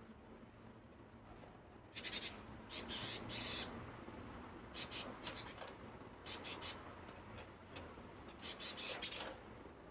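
Japanese tits calling to each other: four quick bursts of short, high, chattering notes.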